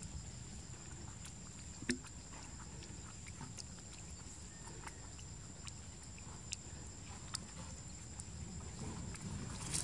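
Faint outdoor ambience: a steady high-pitched drone over a low rumble, with scattered small clicks and one sharper click about two seconds in.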